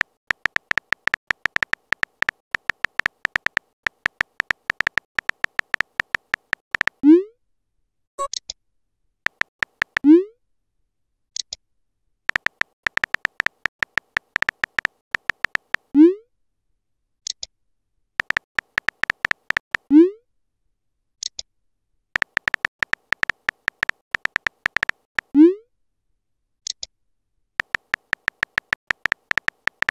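Texting-app sound effects: runs of rapid, even keyboard-tap clicks as messages are typed, broken by five short rising pops as message bubbles appear, each followed about a second later by a brief high chirp.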